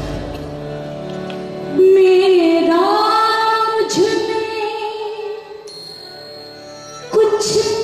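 A woman sings a long, wavering held note over harmonium accompaniment in Hindustani light-classical style. The voice drops out for about two seconds, leaving the softer accompaniment, then the music comes back strongly near the end.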